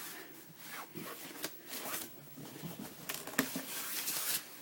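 A cardboard box and its paper packaging being handled and opened: scattered taps, scrapes and paper rustling, with a longer rustle near the end.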